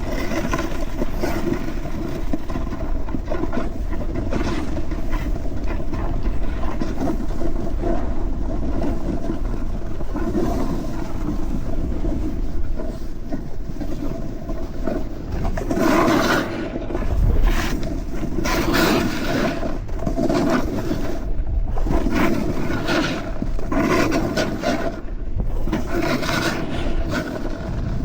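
Snowboard sliding over snow, its edges scraping and hissing continuously, with louder surges of scraping coming and going through the second half as the board digs into turns.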